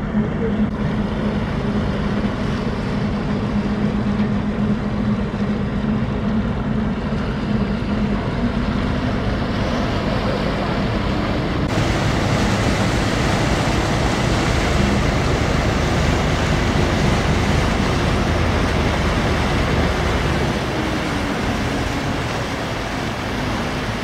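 Steady low hum of a passing coaster's engine over rushing, churning water, with wind noise on the microphone. About halfway through the sound jumps to a fuller rushing noise with more low rumble.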